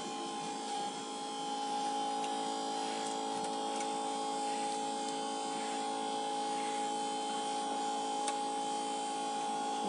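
LCD separator machine's built-in vacuum pump running with a steady electric hum, holding the phone screen down on the heated plate for glass separation. A single faint click about eight seconds in.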